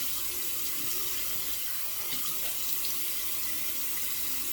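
Bathroom tap running steadily into a sink while a double-edge safety razor is rinsed under it, with a few faint clicks.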